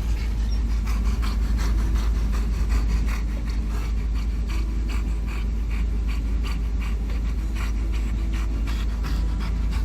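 Steady low road and engine rumble inside a moving van's cabin, with a dog panting quickly.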